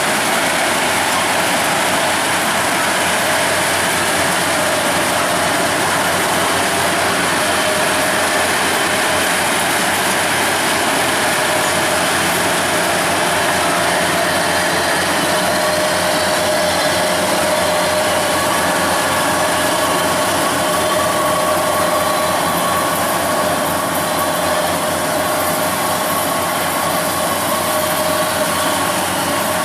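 Kubota DCX 100 rice combine harvester's diesel engine running steadily as the machine travels, with a steady mechanical whine that grows stronger about halfway through.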